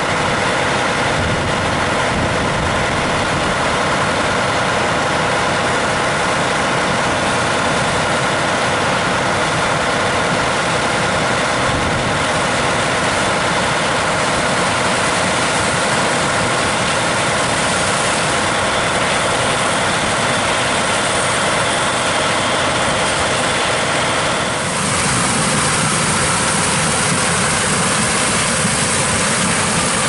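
Diesel engine of harvest machinery running steadily at a constant speed, with a steady hum of fixed tones. About 25 seconds in the sound cuts to a different, lower engine drone.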